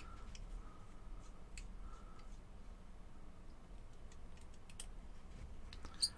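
Faint, scattered light clicks and ticks of a small screwdriver working the screws on a metal rebuildable vape atomizer deck as they are backed off, with a couple of sharper clicks near the end.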